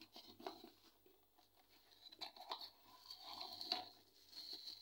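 Plastic bubble wrap crinkling and rustling as it is handled, faint, with a few light clicks; it starts about two seconds in.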